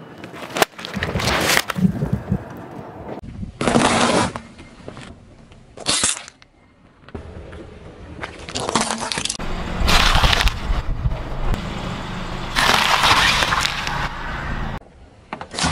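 A string of separate crushes under a car tyre on asphalt: a water-bead balloon, a plastic bicycle tail light and broccoli are run over one after another. About six sudden cracking, popping and squashing bursts come a second or two apart, with a low rumble of the rolling car between them.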